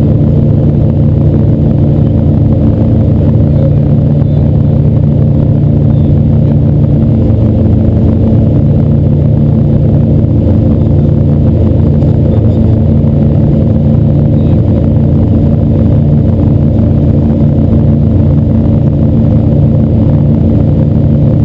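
Motorboat engine running steadily at cruising speed, a loud, even low drone.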